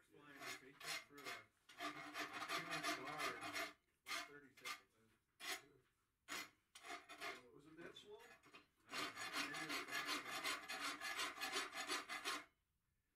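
Rasp filing a hot steel bar clamped in a leg vise: gritty scraping strokes, several short ones and two long runs of back-and-forth rasping. Hot steel is cut in both directions of the stroke.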